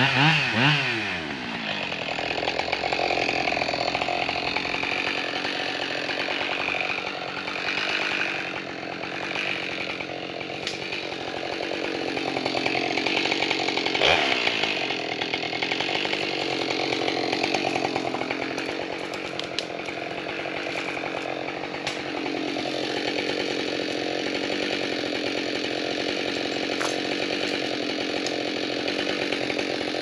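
Husqvarna 572XP two-stroke chainsaw bucking a dead fir log into firewood. Its pitch swings up and down over the first second, then it runs steadily through the cut.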